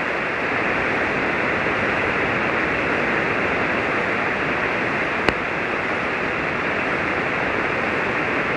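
Ham radio receiver on single-sideband passing steady band noise, an even hiss cut off at the top like a narrow voice filter, while the other station is not transmitting. One sharp click comes about five seconds in.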